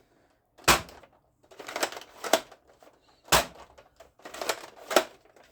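Plastic toy guns being handled, giving a series of sharp clicks and clacks. Single hard clicks come about a second in and just past the middle, with short rattling runs between them.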